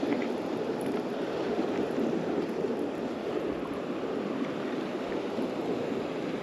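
Surf washing up the beach: a steady rush of breaking waves and foam.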